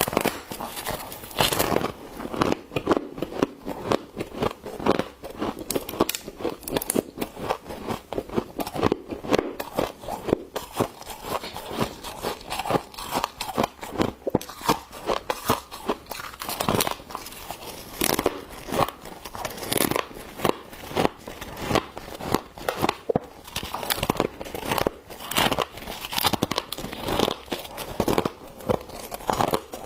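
Humidifier frost being scooped, with dense crisp crunches and crackles several times a second.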